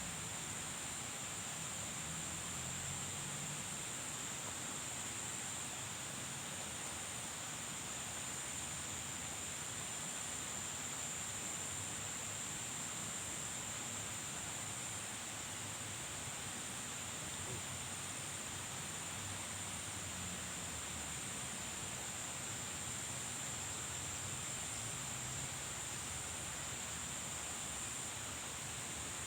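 Steady outdoor ambience: an even hiss with insects droning constantly at one high pitch. Nothing changes or stands out.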